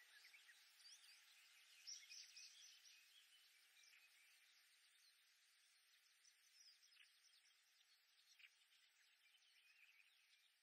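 Faint oriental reed warblers singing: a dense run of short chirping notes over a steady background hiss, busiest two to three seconds in, then thinning out and growing fainter toward the end.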